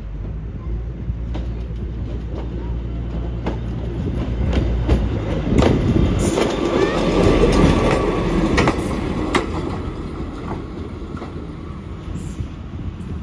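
A rail vehicle passing on the track. Its wheels click over the rail joints above a low, steady engine hum. It gets louder to a peak about halfway through, then eases off.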